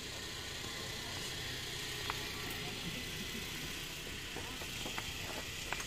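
Steady low hum of an idling vehicle, with a few light knocks and clicks in the second half as a motorcycle is pushed up into the back of a van.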